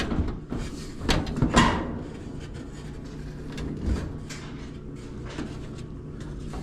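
Sheet-metal front panel of a clothes dryer being handled and pulled off: a few knocks and scrapes, the loudest about a second and a half in and another near four seconds, with quieter rattling in between.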